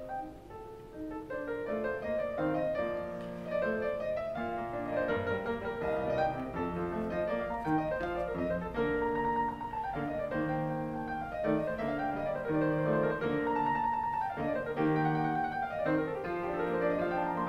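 Background piano music: a classical-style piece played in quick, flowing runs of notes.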